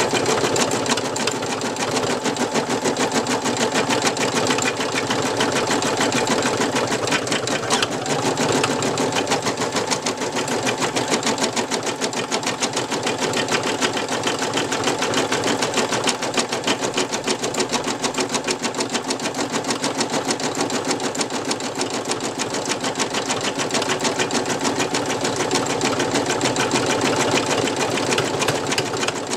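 Brother NV2600 embroidery machine stitching out a design: a rapid, even ticking of needle strokes over the hum of its motor.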